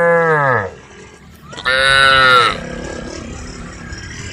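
Cows mooing: a short moo at the start and a longer one about a second and a half in, each dropping in pitch as it ends.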